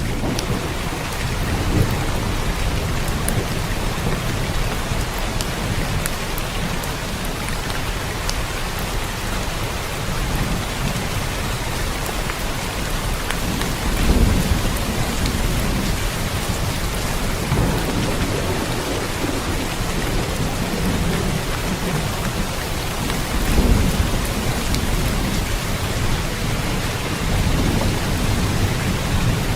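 Steady rain falling, with low rumbles of thunder swelling up several times, the strongest about halfway through and again a few seconds before the end.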